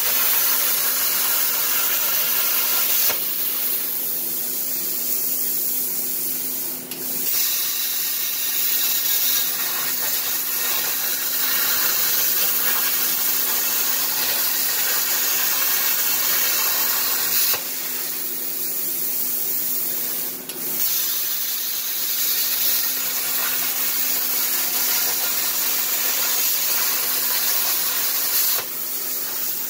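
Everlast PowerPlasma 60 plasma cutter with a machine torch cutting sheet steel on a CNC table: a steady, loud hiss of the plasma arc and its air, over a steady hum from the downdraft blower. The hiss changes level a few times and dips briefly about 7 s and 21 s in as the torch works between cuts.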